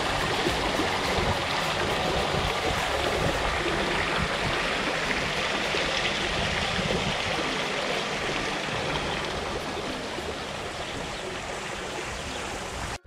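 Steady rush of running water in a swimming pool, growing a little fainter near the end.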